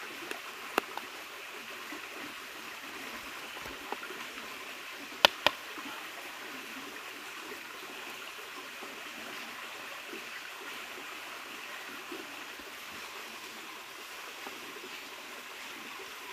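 Steady rushing of a river stream. A few sharp clicks cut through it, the loudest two coming close together about five seconds in.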